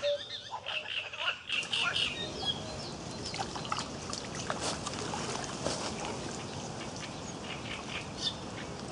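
Birds chirping outdoors, with many short high calls in the first two seconds, then sparser calls and ticks over a steady background hiss.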